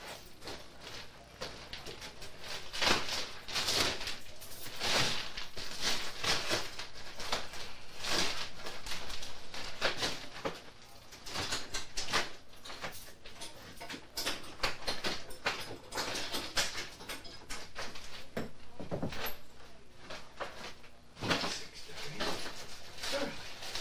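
A run of irregular knocks, clatters and scrapes, coming in quick clusters with short pauses between.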